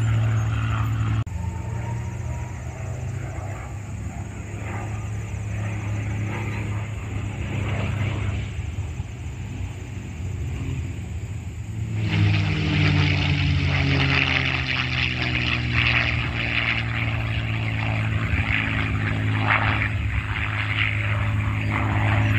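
Piston-engine World War II fighter plane droning in flight. About halfway through the sound jumps louder, and the engine's pitch then slowly falls as the plane passes over.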